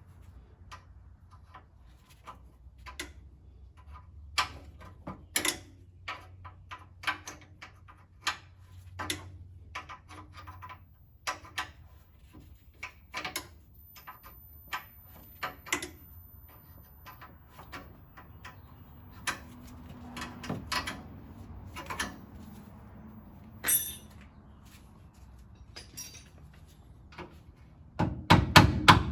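Scattered metallic clicks and knocks of wrenches and parts being handled while a brake master cylinder is unbolted and pulled out, over a low steady hum. A run of rapid, loud knocks starts near the end.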